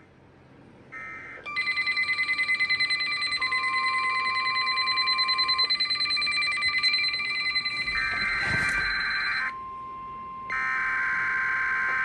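Several NOAA weather radios sounding their alarms at once for a Severe Thunderstorm Warning: beeping and warbling tones layered into a steady chorus, with a lone steady warning tone under it part of the way through. The chorus stops suddenly about nine and a half seconds in, leaving the steady tone, and a buzzy data burst follows near the end.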